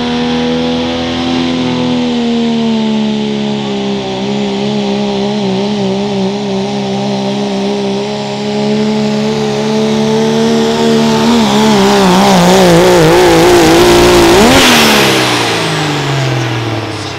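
Diesel pulling truck's engine running at high revs under load on the sled, a steady note whose pitch begins to waver and bounce about eleven seconds in. It is loudest about fourteen seconds in, then the engine note falls away near the end.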